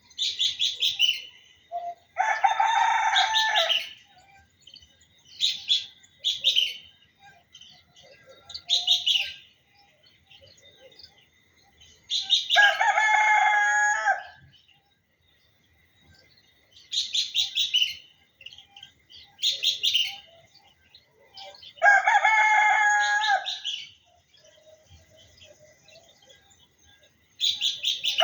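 Rooster crowing three times, each crow about two seconds long and roughly ten seconds apart, with short bursts of bird chirping in between.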